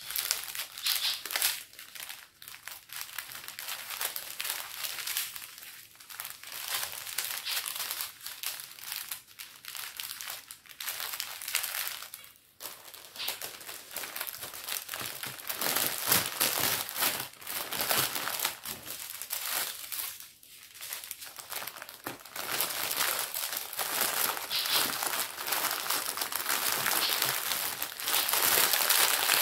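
Plastic packaging of a diamond painting kit crinkling and rustling on and off as it is handled and unwrapped.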